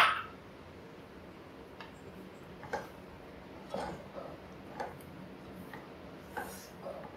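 Wooden spatula stirring thick mango curry in a nonstick pan: one sharp knock at the start, then soft, scattered scrapes and taps about once a second.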